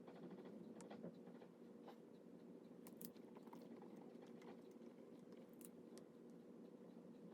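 Near silence: a steady low room hum with a few faint, scattered clicks and taps.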